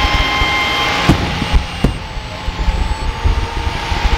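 Fireworks display: a continuous rushing roar of comets and mines firing, with two sharp bangs, one about a second in and another just under a second later.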